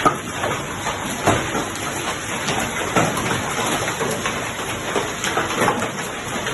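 Heavy rain mixed with hail pelting down: a steady dense hiss with many sharp irregular impacts of hailstones striking surfaces.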